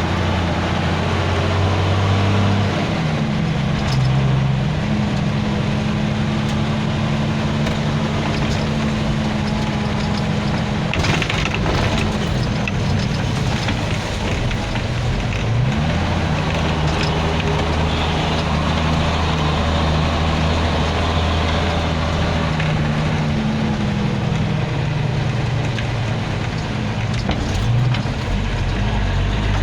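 A motor vehicle engine running steadily, its pitch dipping and rising a few times as it changes speed, over a constant hiss of noise.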